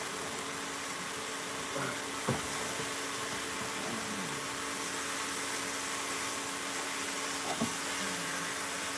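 Armadillo meat sizzling in a skillet on an induction cooktop over a steady fan hum, with two light clicks of metal tongs against the pan.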